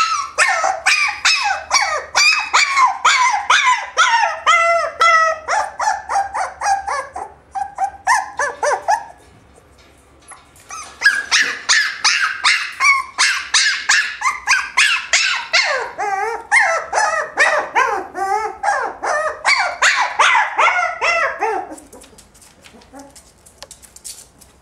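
Short-haired dachshund puppy yapping in rapid, high-pitched yelps, several a second, in two long bouts with a pause of about two seconds between them; it goes quiet near the end.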